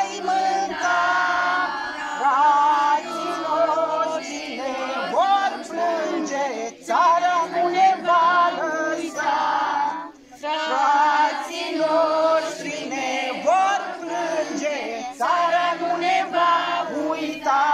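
A group of children singing together in chorus, phrase after phrase, with short breaths between phrases about seven and ten seconds in.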